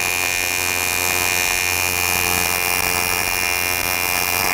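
AC TIG welding arc on aluminum from an Eastwood TIG 200 LCD inverter welder, buzzing steadily with a high tone running through it as a bead is laid.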